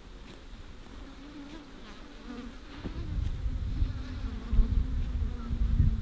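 Worker honey bees buzzing in flight, a wavering hum. A low rumble grows louder from about halfway.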